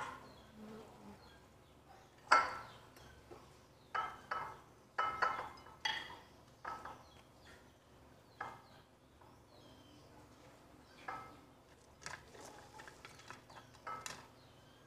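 Serving utensils clinking and scraping against ceramic plates as food is dished out: a string of sharp clinks, the loudest about two seconds in.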